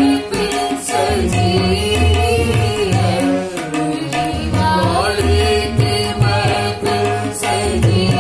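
A man and a woman singing a Hindi devotional bhajan together, with steady hand-drum percussion keeping the rhythm beneath the voices.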